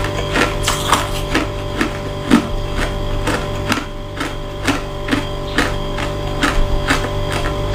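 Close-up crunching of a mouthful of white shaved frost ice being chewed, in an even rhythm of about three crunches a second.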